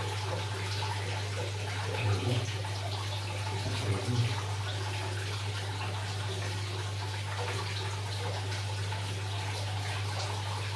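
Tap water from a hose pouring through a strainer into a filled aquarium and splashing on its surface, a steady rush with a low hum under it. Two brief soft bumps about two and four seconds in.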